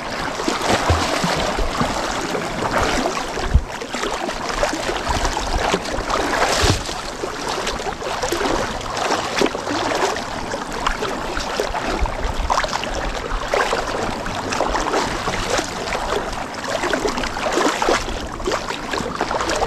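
Sea water splashing and rushing against a small boat's hull, an uneven wash of noise with no voices.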